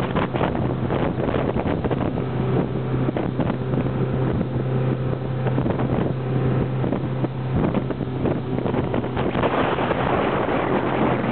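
Small motorboat's engine running steadily underway, a constant low hum, with wind buffeting the microphone.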